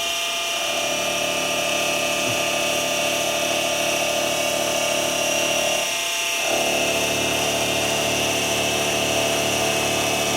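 Mini milling machine running with a steady motor whine. The note shifts about half a second in, then again after a brief dip around six seconds in.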